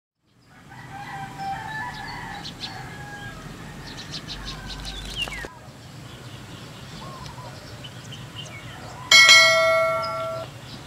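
Channel-intro sound effects: bird-like chirping with a few clicks and a falling swish in the first half. Then, about nine seconds in, a loud bright bell chime rings out for over a second: the notification-bell sound of a subscribe animation.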